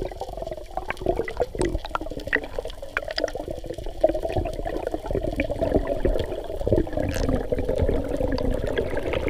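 Water churning and bubbling, muffled as heard by a camera underwater, with scattered clicks and knocks throughout.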